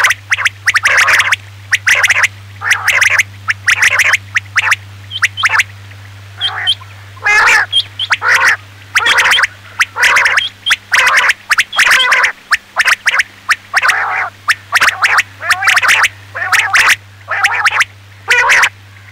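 Male quail (batair) calling over and over in quick, guttural bursts, about two a second with short pauses between runs: a lure recording of male calls only, with no female call mixed in. A steady low hum runs underneath.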